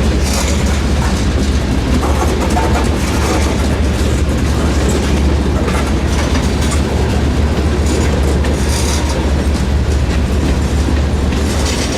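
CSX freight train rolling past, a steady heavy rumble with clusters of wheel clicks over the rail joints.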